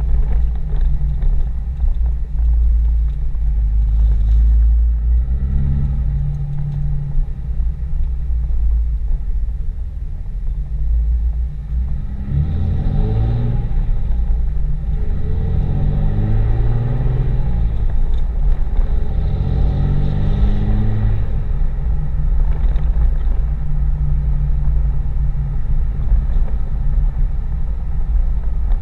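Inside the cab of a 2007 Dodge Ram 2500 with its 5.9-litre Cummins turbo-diesel straight-six: a deep steady drone. From about twelve seconds in, the engine note climbs and drops several times as gears of the G56 six-speed manual are floated (shifted without the clutch), then settles again a little after twenty seconds.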